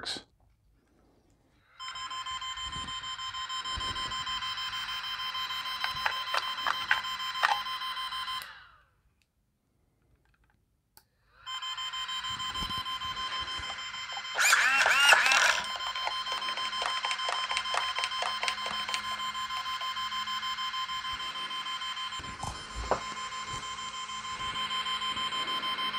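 Brushless ESC beeping wildly and without a break on power-up, a rapid, steady high-pitched tone that stops for about three seconds near the middle and then starts again. A brief louder warble comes about fourteen seconds in. The beeping is the sign of an ESC that will not arm: the combo does not work.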